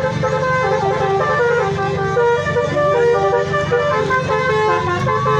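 Bus 'telolet' multi-tone horn playing a quick melodic run of stepped notes, over the steady low drone of an idling bus engine.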